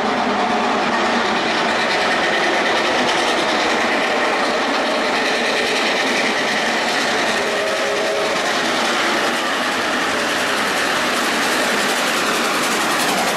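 AC16-class steam locomotive 221A, a Baldwin/Lima-built 2-8-2, working through at speed with a passenger train: loud exhaust from its short stack over the steady noise of wheels on rail.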